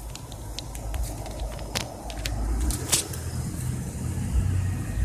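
Hummer H3's 3.5-litre Vortec inline five-cylinder idling as a steady low rumble, with scattered sharp clicks and knocks close to the microphone.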